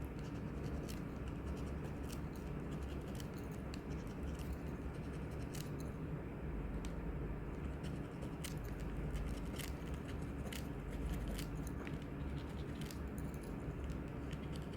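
A metal dog tag scraping the silver coating off a crossword scratch-off lottery ticket: steady scratching with scattered light clicks.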